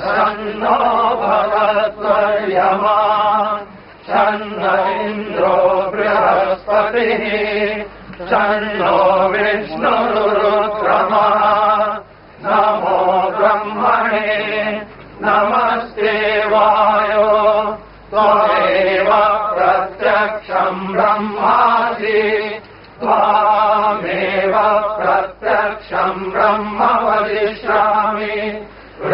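Men's voices chanting a religious chant in unison, in phrases a few seconds long with short pauses for breath between them.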